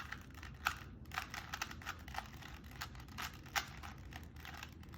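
A plastic Rubik's Cube being turned quickly, its layers clacking in an irregular run of light clicks, several a second.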